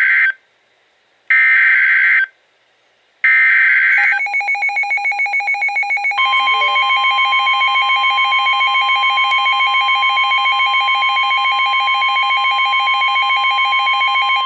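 Emergency Alert System tornado warning opening with three short bursts of shrill digital data tones (the SAME header). These are followed by a rapidly pulsing alert tone, joined about six seconds in by a steady high tone: the 1050 Hz NOAA Weather Radio warning alarm.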